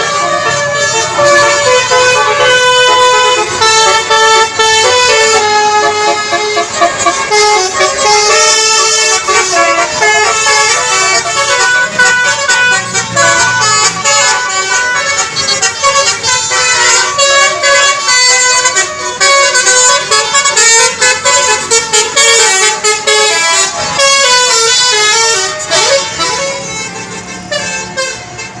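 Basuri telolet bus horn, a multi-tone horn, playing a long melody of quick note-to-note jumps, fading out near the end.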